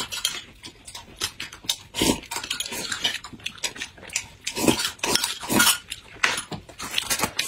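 Close-miked eating sounds: a string of loud wet slurps and chewing, some slurps falling in pitch, with light clicks of a spoon and chopsticks.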